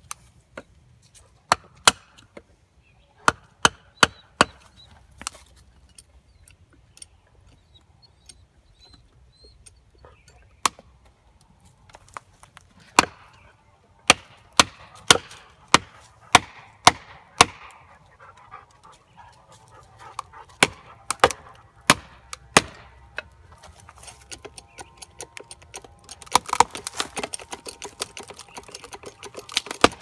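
A small sledgehammer striking plastic felling wedges driven into the back cut of a large oak, with sharp blows in quick runs of a few strikes and pauses between. Near the end comes a denser run of clicks and cracks.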